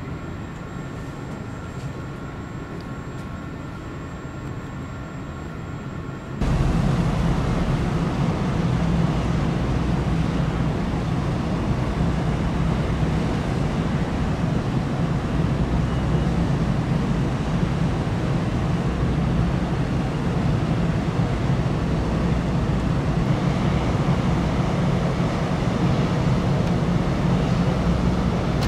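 Quiet room tone with a faint steady hum. About six seconds in it gives way to the steady low drone and rushing of a large car ferry's machinery running while the ship lies at its berth.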